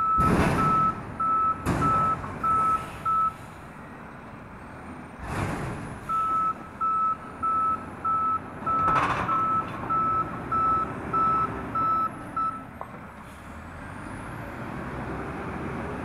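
Mack MRU front-loader garbage truck's reversing alarm beeping about twice a second, stopping after about three seconds and starting again for about six more, with four short loud hisses of air from the truck's air brakes in between. Near the end the diesel engine rises in pitch as the truck pulls away.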